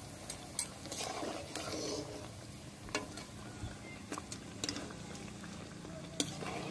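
Hot oil bubbling softly in a steel kadai as fried lentil fritters are lifted out in a wire skimmer to drain, with a few sharp clicks of the metal skimmer and spatula against the pan.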